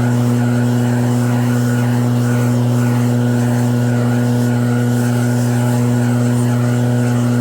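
Snowblower engine (EB7660RED) running at a steady speed, one constant pitch that holds unchanged.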